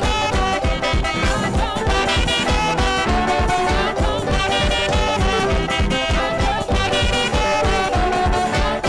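Live upbeat African praise music: a saxophone playing a melody over a band with a fast, steady drum beat.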